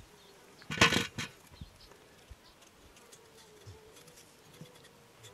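A brief clatter about a second in, then a fly buzzing faintly in a thin, wavering drone.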